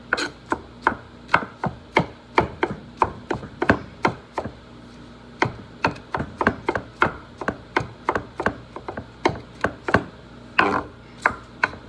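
Knife chopping food on a cutting board: a steady run of sharp knocks, about three a second, with a short break about four seconds in.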